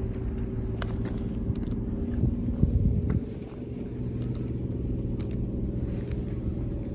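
Steady low drone of an engine under a low rumble, with a louder buffeting burst about two and a half seconds in.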